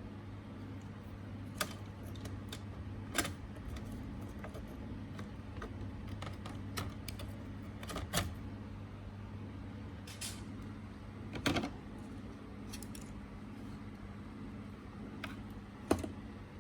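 Scattered light clicks and clatters of small plastic and metal laptop parts, screws and a tool being handled during disassembly, over a steady low hum.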